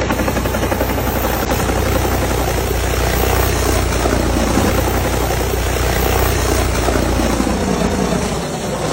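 Helicopter engine and rotor noise, loud and steady, easing slightly near the end.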